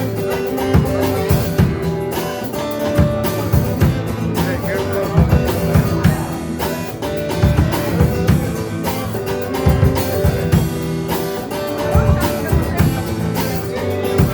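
Instrumental break of a rock song: electric guitar with bass and a drum kit keeping a steady beat.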